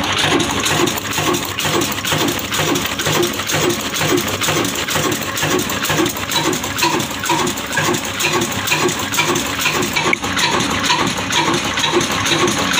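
Old single-cylinder horizontal oil engine, a Pakistani 'Shaheen' of Daska of the Ruston type, about 70 years old, running steadily at slow speed. It gives an even beat of about three strokes a second, with a light metallic clink on each beat.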